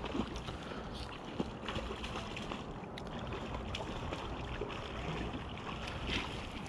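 Shallow river water running steadily, with a few brief splashes from a hooked salmon thrashing at the surface.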